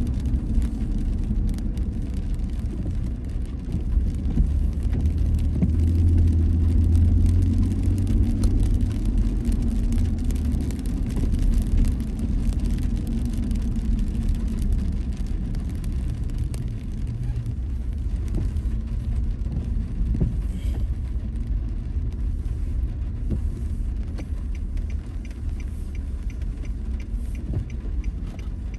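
Road and engine noise of a car driving on a wet road, heard from inside the cabin: a steady low rumble that grows louder for several seconds in the first half, then settles.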